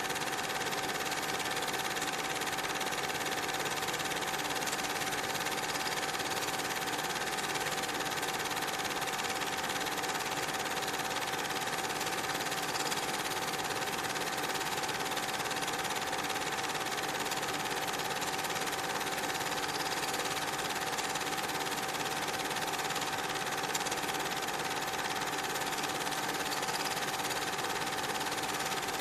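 Steady mechanical whirr of a running film projector with a constant hum, unchanging throughout.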